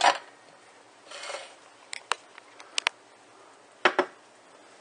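Wooden spoon working in an electric skillet of gravy: a handful of sharp clicks and knocks of the spoon against the metal pan, with a short scrape about a second in.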